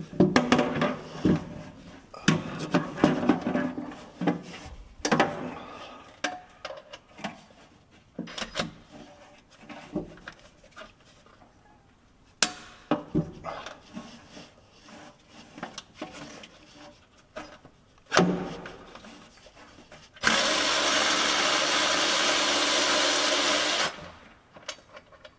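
Tools clinking and scraping on metal around the oil pan and pickup tube bolts, then a power ratchet runs steadily for about three and a half seconds near the end, spinning out a pickup tube bolt, and stops suddenly.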